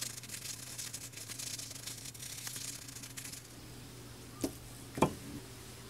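Stiff bristle brush scrubbing a small rusty metal model-car part in soapy water, a dense scratchy rasping that stops about three and a half seconds in. Then two short knocks on a hard surface, the second louder.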